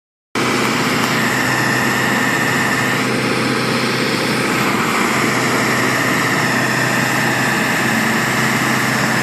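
Truck engines idling steadily, with no revving.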